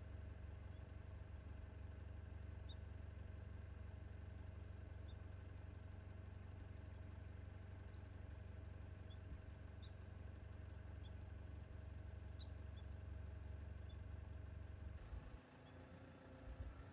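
Faint, steady low engine hum that cuts off about fifteen seconds in, with small high chirps scattered every second or two.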